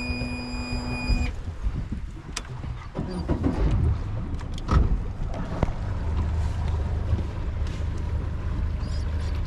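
Yamaha 115 outboard motor running as the boat moves, a steady low rumble with wind on the microphone and a few knocks in the first half. A steady hum stops abruptly about a second in.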